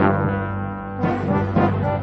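Background music with low brass-like notes and a steady pulse.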